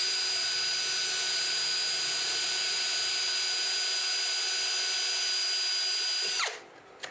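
Kamolee cordless drill whining at one steady speed as its bit bores into a black plastic charger case, then winding down and stopping about six and a half seconds in, with a small click just after.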